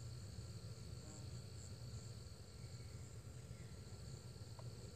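Faint steady chorus of evening insects, high thin chirring with light pulsing, over a low background rumble.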